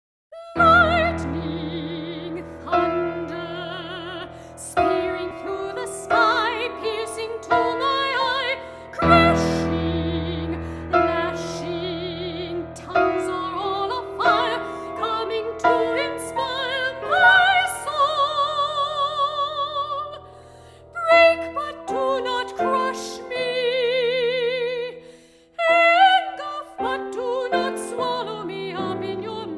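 Soprano singing a contemporary art song with a wide vibrato on held notes, over piano accompaniment striking repeated notes and chords.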